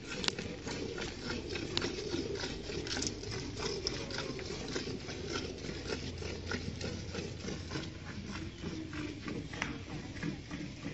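Milk squirting in quick, steady strokes from a cow's teats into a steel bucket as she is milked by hand.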